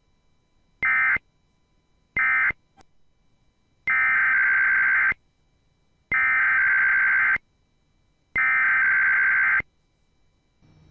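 Emergency Alert System digital data bursts, the screechy modem-like tones of the SAME code. Two short bursts close the end-of-message code that ends the preceding alert. From about 4 s in come three longer bursts of about a second each, a second apart: the header of the next alert.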